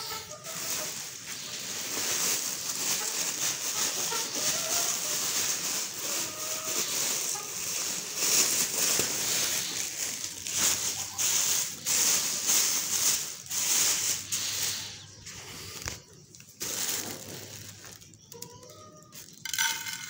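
Woven plastic feed sack and its thin plastic liner rustling and crinkling as they are handled and opened: a continuous crackling rustle that dies down after about fifteen seconds. Hens cluck faintly now and then.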